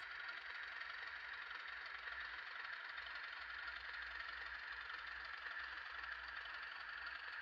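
N gauge model diesel locomotive running slowly along the track, its small electric motor and wheels giving a faint, steady whirr over a low hum.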